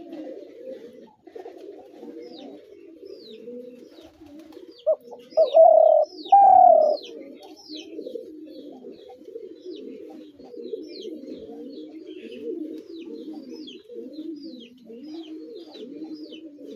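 Spotted doves cooing, many calls overlapping without a break, with two louder, closer coos about five and six and a half seconds in. Short high chirps repeat throughout.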